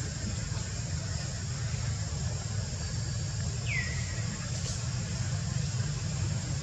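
Outdoor background: a steady low rumble under a steady high hiss, with one short whistle about four seconds in that falls in pitch and then levels off.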